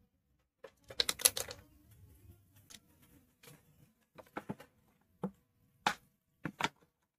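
Red plastic tea strainer clattering and tapping on a tile floor as a kitten bats, bites and claws at it, with a quick burst of clicks about a second in and then scattered single taps.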